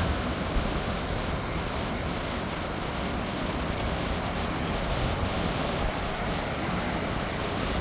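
Steady rush of strong wind and surf, with wind buffeting the microphone.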